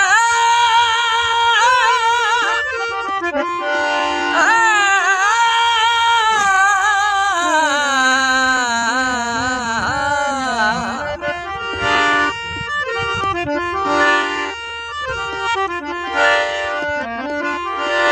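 Punjabi folk song: a man sings long, ornamented, sliding notes over a harmonium's steady reed chords, with tabla accompaniment. In the later part the harmonium and tabla come forward, with regular drum strokes under the chords.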